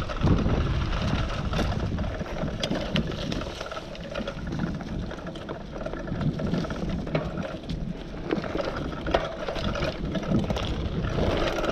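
Mountain bike rolling along a dirt trail: tyres crunching over dirt and dry leaves, with the bike rattling and knocking over bumps and wind buffeting the microphone.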